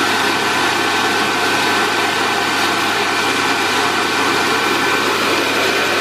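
Dyson DC63 Allergy canister vacuum cleaner running at its single power setting with the floor nozzle removed: a loud, steady suction rush with a high whine held at one pitch.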